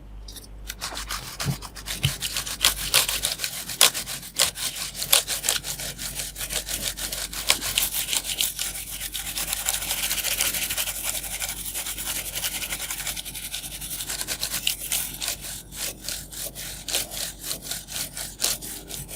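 A paintbrush scrubbing back and forth across the mechanical keyboard's plate and exposed switches, brushing out a year's dust and hair. It makes a fast, continuous run of scratchy strokes.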